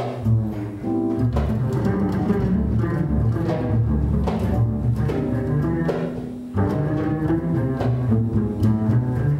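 Upright double bass plucked pizzicato in a live jazz group, a line of low, ringing plucked notes to the fore with light accompaniment behind. The bass drops out briefly a little past the middle, then comes back in.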